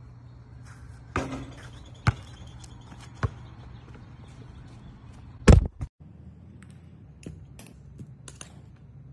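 Basketball thuds: four sharp bounces spread over about five seconds, the loudest about five and a half seconds in. After a short break come several faint light clicks of chopsticks tapping against a bowl.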